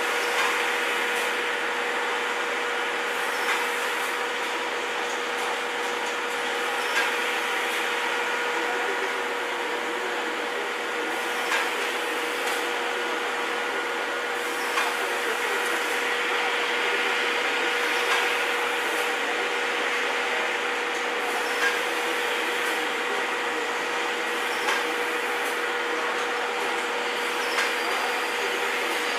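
Steam train standing at a platform: a steady hiss with a constant mid-pitched hum, and a soft knock every three to four seconds.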